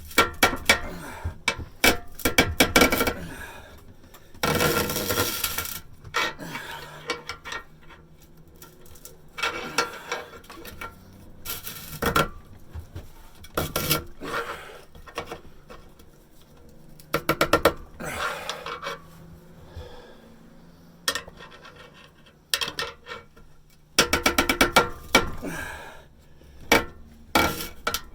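Rusted steel exhaust pipe stub being twisted out of a muffler's inlet with pliers and a bar: metal grinding and scraping with rattling clinks of the tools, in bursts every few seconds.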